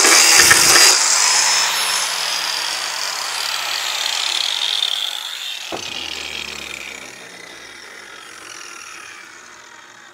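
Power grinder grinding briefly, then switched off, its whine falling steadily in pitch as the disc spins down and fades. A single sharp knock a little before six seconds in.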